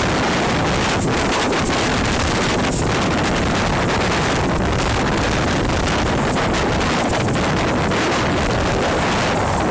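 Wind buffeting the microphone over water rushing along the hull of a motorboat under way: a steady, loud rush with a few brief splashes.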